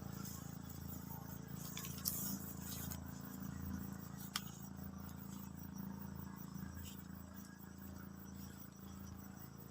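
Quiet riverside ambience: a steady high-pitched insect drone over a low, even hum, with a few faint clicks.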